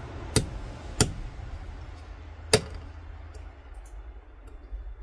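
Three sharp metallic clicks, each a single strike, as the steel spring bar of a Ford flip-key fob is worked out with hand tools, over a steady low hum.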